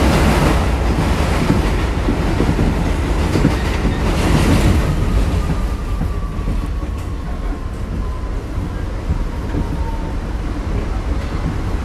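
New York City 6 line subway train heard from inside the car while it is moving: a steady rumble of wheels on the rails. About halfway through, a faint whine slowly falls in pitch over the rumble.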